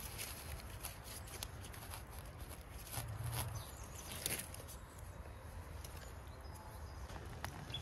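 Light rustling and scattered small crackles of dry leaf litter and a gloved hand handling mushrooms on a fallen log, over a steady low rumble, with a soft thump about three seconds in.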